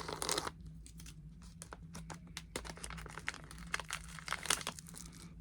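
Foil blind-bag packaging crinkling and tearing as it is opened by hand, in many short irregular crackles, with a steady low hum underneath.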